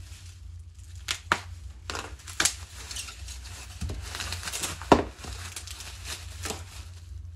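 Bubble wrap crinkling and rustling as it is pulled off a metal tube, a shotgun magazine tube, with several sharp clicks and one louder knock about five seconds in.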